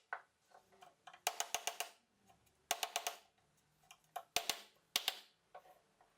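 A chisel being struck into wood, heard as four bursts of quick, sharp knocks about a second apart.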